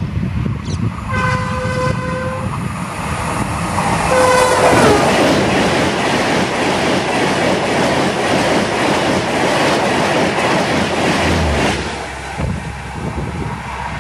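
WAP-5 electric locomotive and Gatimaan Express coaches passing at about 160 km/h. There are two horn blasts, the second dropping in pitch as the locomotive goes by. Then comes the loud rush and rapid wheel clatter of the coaches, which drops off suddenly near the end as the last coach clears.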